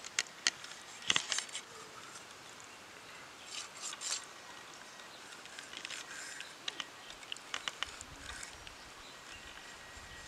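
Kitchen knife scoring raw quail: scattered light clicks and scrapes of the blade against flesh, bone and the steel plate, in short clusters, over a steady high background of insects and birds.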